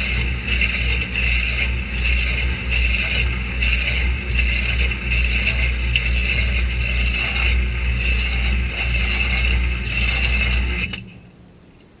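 Whirlpool WTW4900BW impeller top-load washer spinning its basket, heard from inside the basket: a loud, steady motor hum with a regular pulse a little more often than once a second. Near the end the hum drops off suddenly, leaving only faint ticking.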